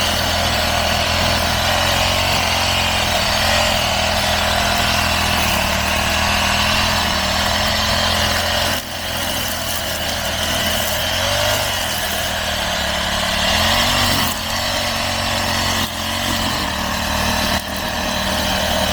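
Brush cutter engine running steadily while cutting grass, its loudness dipping briefly a few times in the second half.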